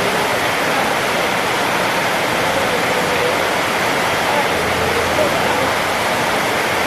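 A steady, loud rushing noise with faint indistinct chatter of voices underneath.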